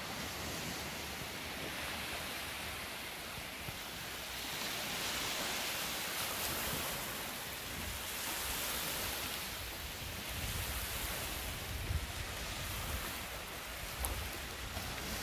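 Small lake waves washing onto a gravel beach, swelling and easing every couple of seconds, with some low rumbling and a few soft knocks in the second half.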